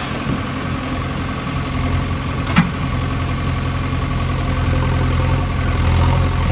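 Low-pitched engine idling steadily, with one sharp click about two and a half seconds in.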